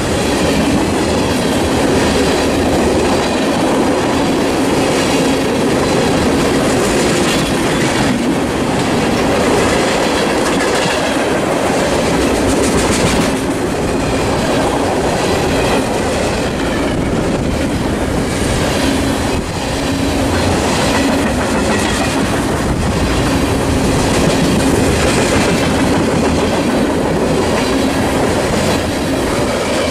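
Freight train of tank cars passing close by: steel wheels rolling on the rails with a steady loud rumble and a run of clicks as the wheels cross rail joints.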